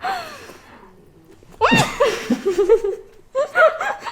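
A woman's voice crying out and laughing: a falling cry at the start, then a loud high cry about a second and a half in that breaks into choppy laughter, with more laughter near the end.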